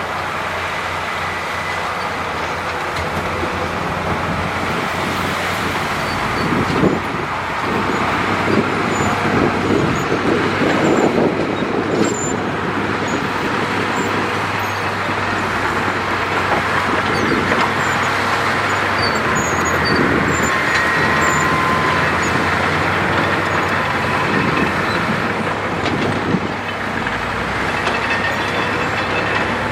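Heavy diesel earthmoving machinery running steadily under work, with a few knocks and some thin high squeals.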